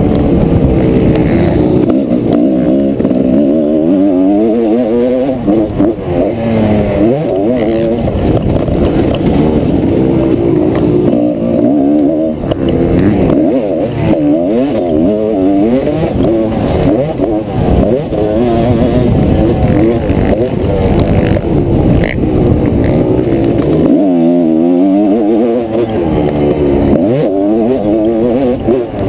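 1997 TM Racing 250 Cross single-cylinder two-stroke motocross engine heard onboard under hard riding, revving up and dropping back over and over as the rider works the throttle and gears. Near the end the throttle is briefly shut off, then the engine revs up again.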